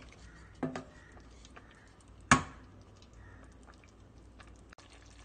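Wooden spatula working coconut strands in a steel pot of sweetened water: faint scattered small clicks, and one sharp knock against the pot a little over two seconds in.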